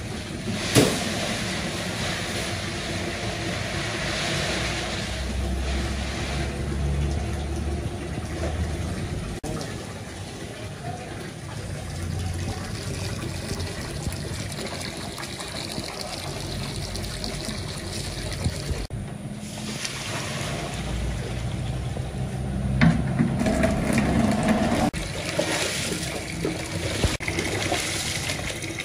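Water running into a large steel basin of rice, with hands swishing and churning the rice in the water to wash it, busier near the end.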